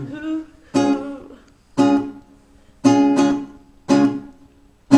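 Chords strummed on a guitar-like plucked string instrument: five short strums that each ring and die away, about one a second, with two close together in the middle.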